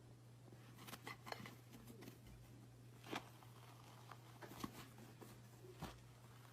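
Near silence: quiet room tone with a low steady hum and a scattering of faint, short clicks and taps.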